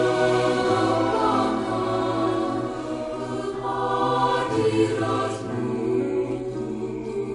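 Music with a choir singing long, sustained notes.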